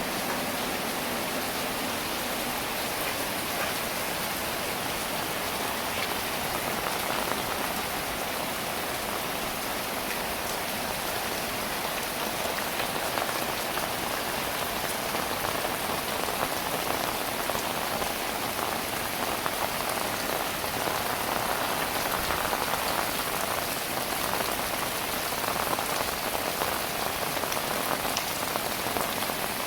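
Heavy rain falling steadily, a dense hiss with many small drop impacts.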